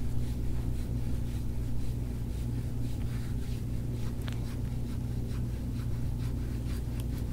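A gua sha tool scraping across the skin of the back in repeated short strokes, faint, over a steady low hum.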